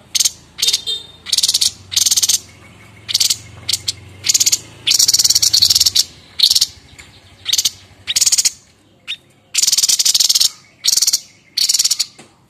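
White-breasted babbler (Stachyris grammiceps) giving its harsh, rasping 'nyerecet' chatter: a run of short, high-pitched bursts with brief pauses between them, with two longer chattering bursts about five and ten seconds in.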